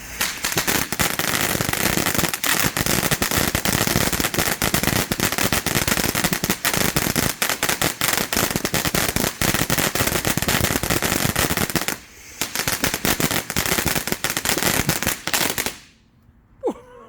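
TNT Fireworks Mount Magna ground fountain crackling densely. It starts suddenly, dips briefly about twelve seconds in, then cuts off about sixteen seconds in.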